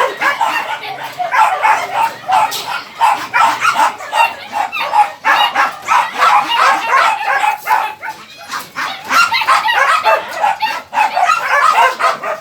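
Dogs barking and yipping without a break, several short calls overlapping.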